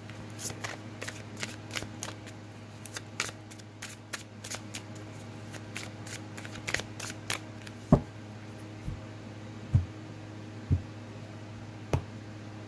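Tarot deck being shuffled by hand, the cards clicking and snapping in quick succession for most of the first seven seconds. In the second half come about five thumps, roughly one a second, as the deck is tapped and cut into piles on the table. A faint steady hum lies underneath.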